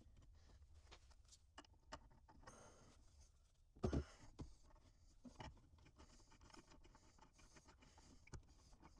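Mostly near silence, with faint scraping and small clicks as a cubby and its mounting hardware are shifted into line inside the Jeep, and one sharper knock about four seconds in.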